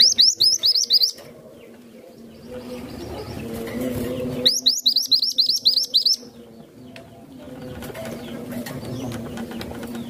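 A caged minivet singing two fast runs of high, rising chirps. The first comes at the start and lasts about a second; the second starts about four and a half seconds in and lasts nearly two seconds. Between the runs a low, wavering hum swells in the background.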